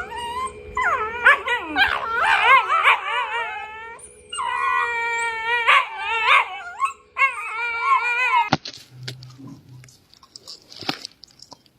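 Dog howling and whining in several long, wavering cries over a steady low background tone. The cries stop abruptly about eight and a half seconds in, leaving a few quieter knocks.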